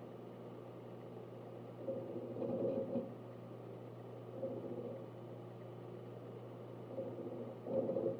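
Synology DS1821+ eight-bay NAS running: a steady fan hum with bursts of hard-drive seek chatter, loudest about two to three seconds in and again just before the end.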